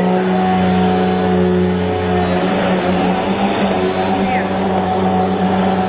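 Bissell PowerForce Helix Turbo upright vacuum cleaner running steadily while vacuuming carpet: a steady motor hum with a thin high whine over it.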